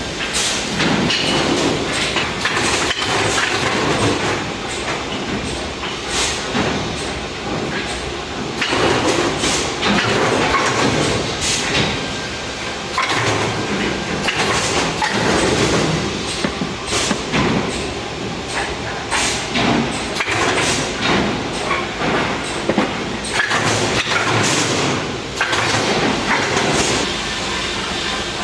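Home-built MPCNC (Mostly Printed CNC) router machine running a job at high speed: a continuous clattering noise full of frequent, irregular sharp clicks and knocks.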